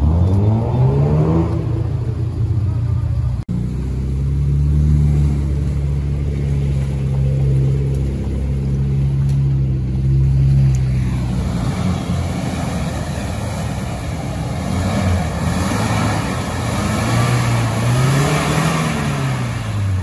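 Off-road vehicle engines labouring and revving on a trail climb, the pitch rising and falling with the throttle, with a sudden break about three and a half seconds in.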